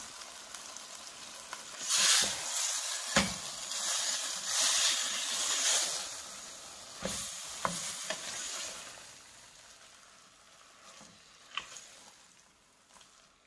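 Lamb mince sizzling in hot oil and onion-tomato masala in a stainless steel pot as a wooden spoon stirs it, with a few sharp knocks against the pot. The sizzle fades away in the second half.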